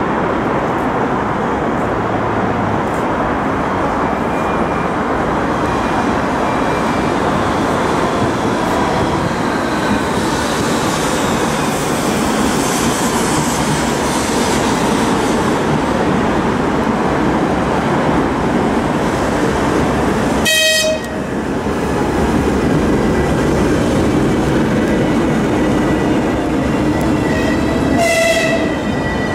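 A TEP70 diesel-electric passenger locomotive's diesel engine runs steadily under load as it hauls a passenger train along the platform, over continuous wheel-and-rail noise. The locomotive sounds two short horn toots, one about 20 seconds in and one near the end.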